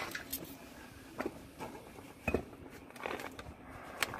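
Scattered light knocks and scrapes of hands working among pipes in a shaft, about six short sharp knocks spread over the few seconds.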